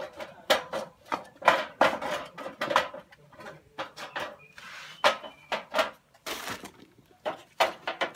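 Dry coconut shells being set down and shifted on a metal sheet inside a metal basin: a string of irregular hollow knocks and scrapes, with a short rustle around the middle.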